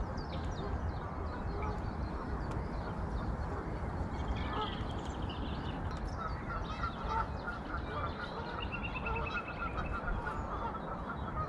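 Geese honking: scattered calls, then a fast run of short repeated calls from about six seconds in, over a steady low rushing noise.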